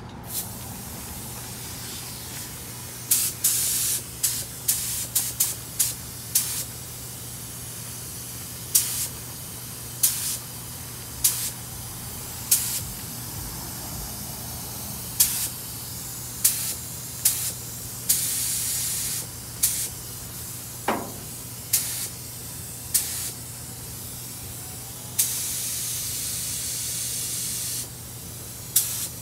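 Air-fed gravity-feed paint spray gun hissing in about twenty short trigger pulls, each under a second. Two longer sprays come later, one of about a second and a half and one of about two and a half seconds near the end. These are test bursts of red paint being sprayed at the booth sheeting to check the pattern.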